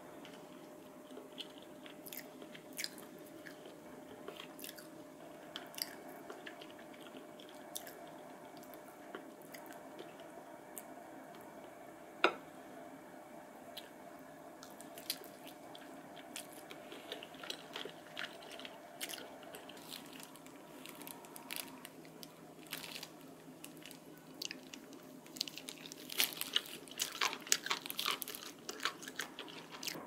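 Close eating sounds: a person biting and chewing grilled whole chicken, with scattered small clicks of a fork and plate. One sharp clink comes about twelve seconds in, and the chewing and clicking get busier near the end.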